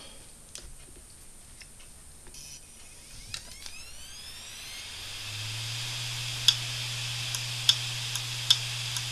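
An opened Samsung hard disk drive powering up: the spindle motor spins the bare platters up with a rising whine about three seconds in, then runs with a steady hum and hiss. Sharp clicks about once a second come from the head arm.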